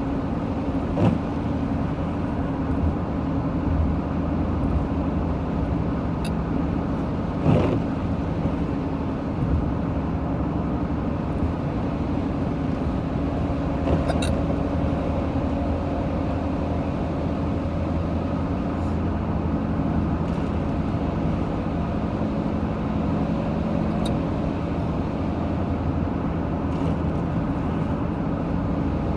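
Steady car engine and road noise heard inside the moving car's cabin, with a few sudden, short hiccups, the loudest about seven and a half seconds in.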